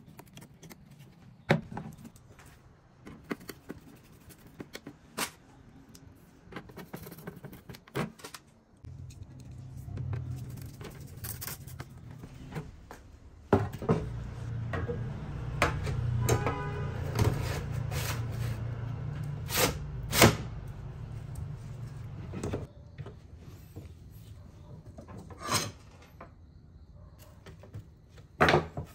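Sheet-metal computer case parts and drive cage being handled and set down: scattered clicks and knocks of metal on metal. A low steady hum comes in through the middle and is loudest about halfway through.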